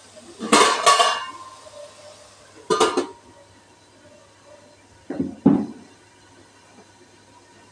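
Steel spoon clanking against a stainless steel cooking pot, with a ringing clatter about half a second in, then the steel lid set down on the pot with another clink near three seconds. Two duller knocks follow a little past five seconds.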